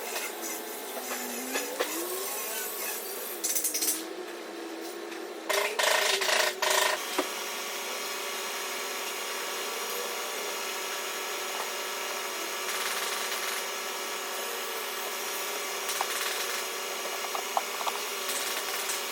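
Tool work on a damaged car body: a steady rasping, scraping noise, with louder bursts about four and six seconds in.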